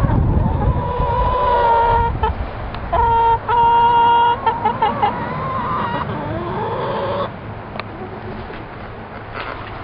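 A flock of chickens calling in their run, with two long, drawn-out calls in the first half and shorter calls after them.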